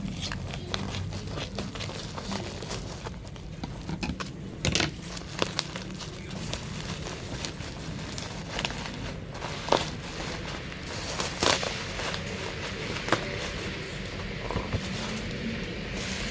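Scattered clicks, knocks and crinkling as a boxed desk study lamp and its packaging are handled and unpacked, over a steady low hum.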